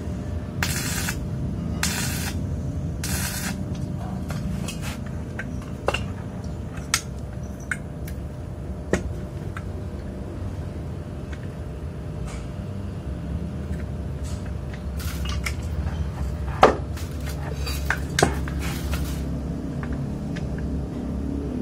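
MMA-120S stick welder's arc striking short tack welds: a few crackling bursts of about half a second each in the first three or four seconds. After that, occasional sharp metal clinks over a steady low hum.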